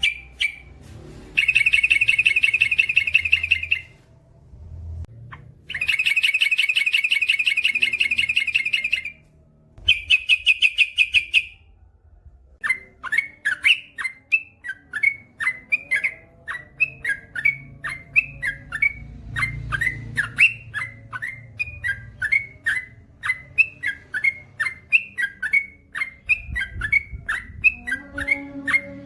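Yellow-vented bulbul (trucukan) singing: three bursts of rapid chattering trills, the first two each about three seconds long, then a long run of quick repeated chirps, about three or four a second.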